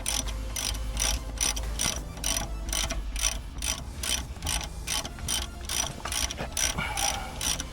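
Hand socket ratchet clicking steadily, about three clicks a second, as a 15 mm rear brake bolt is wound out.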